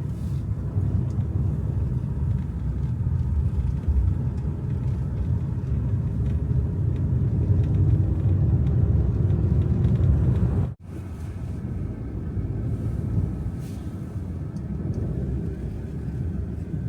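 Low, steady rumble of wind and road traffic, with a vehicle's engine rising in pitch near the middle. The sound cuts out for an instant a little before eleven seconds in, then the rumble carries on.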